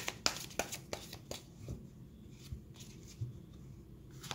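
Tarot cards being handled and drawn from the deck: a quick run of light card clicks and slaps in the first second and a half, then a few scattered softer taps.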